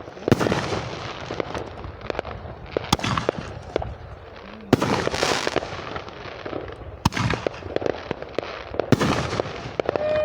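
Fireworks going off: about five sharp bangs roughly two seconds apart, with crackling and smaller pops between them.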